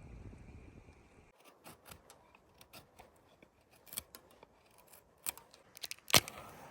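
A series of short, sharp clicks or snips at irregular intervals, the loudest about six seconds in, after low wind-like noise that stops abruptly about a second in.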